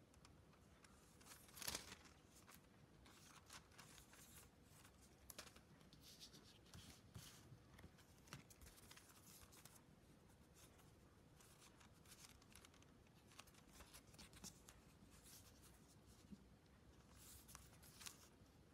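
Faint rustling, crinkling and small clicks of product packaging being handled and opened, with a louder crinkle about two seconds in and another near the end.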